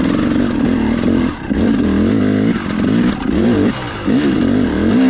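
KTM 300XC-W's single-cylinder two-stroke dirt bike engine running steadily, then revving up and down over and over as the throttle is worked, its pitch rising and falling about once a second.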